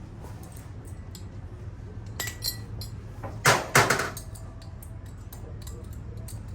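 Light clicks and clinks of a telescoping pressure washer extension wand being handled, with two loud sharp knocks about three and a half seconds in, over a steady low hum.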